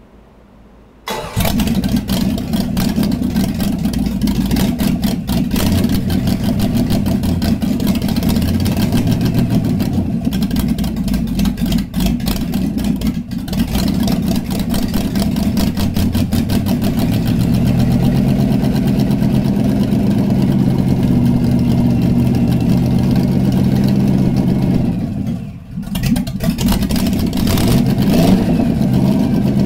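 Chevy 350 small-block V8 on an engine stand firing up about a second in and running steadily, with shifts in engine speed as the throttle is worked. Near the end the sound sags for a moment and then picks back up. The owner says its carburetor has a bad power valve.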